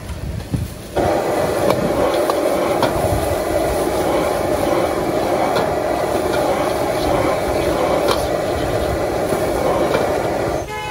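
Street-stall wok burner's gas flame turned up to full, a loud steady rush that starts suddenly about a second in and cuts off just before the end. A few sharp metal clicks ring out over it.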